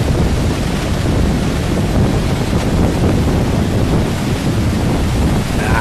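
Heavy Pacific surf crashing and rushing ashore, a steady loud roar of breaking waves, mixed with wind buffeting the microphone.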